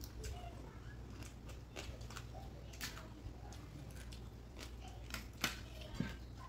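Chewing and crunching of crab shell while eating crab curry by hand, with scattered sharp clicks, the loudest about five and a half seconds in.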